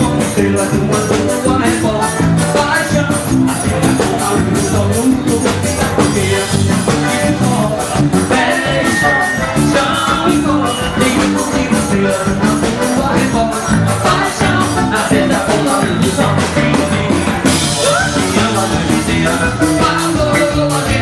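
Forró band music with a quick, steady beat.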